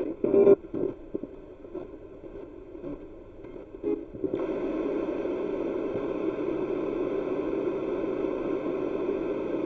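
Spirit box scanning through radio frequencies, heard through its small speaker: choppy bursts of static and radio fragments, then from about four seconds in a steady rush of static.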